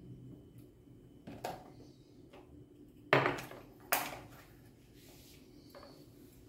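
A cardboard drink carton and a glass jar handled on a kitchen counter: a light knock, then two sharp knocks about three and four seconds in as the carton is set down and capped after pouring.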